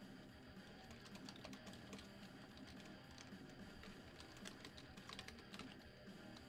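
Faint, irregular clicking of typing on a computer keyboard, over quiet background music.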